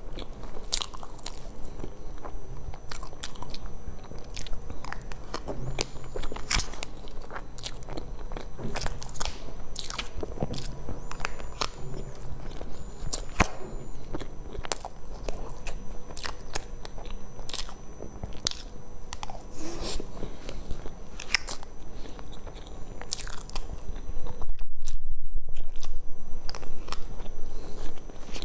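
Close-up eating sounds of a soft cream dessert being spooned and chewed: many short, sharp wet mouth clicks and smacks.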